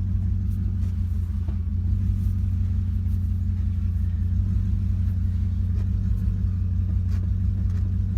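BMW E39 540i's 4.4-litre M62 V8 idling steadily with a low, even rumble, left running to bleed the cooling system after a water pump replacement.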